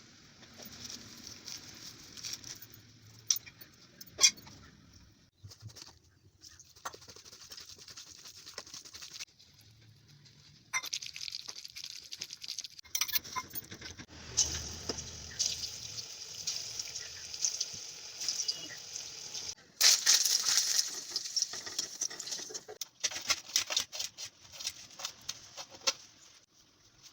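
Sounds of pakoras being made: utensils clicking and clinking, with stretches of hot oil sizzling as the fritters fry. The loudest sizzle starts suddenly about 20 seconds in.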